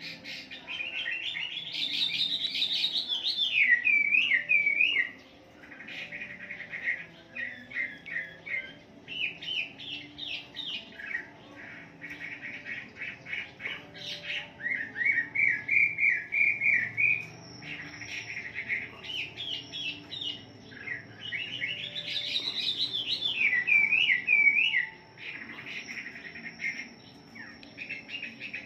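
Chinese hwamei (melodious laughingthrush) singing a long, varied song of loud whistled and warbled phrases, some notes repeated in quick loops, with short breaks about five seconds in and near the end.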